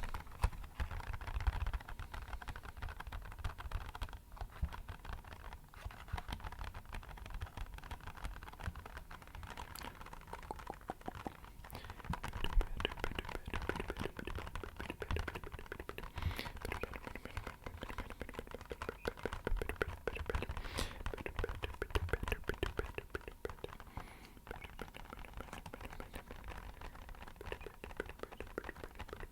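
Fingertips tapping fast and unevenly on an empty box, a dense patter like rainfall.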